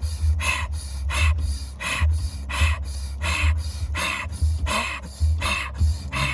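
Fast, hard rhythmic breathing, as in a breathwork exercise: forceful breaths close to the microphone at about one and a half a second.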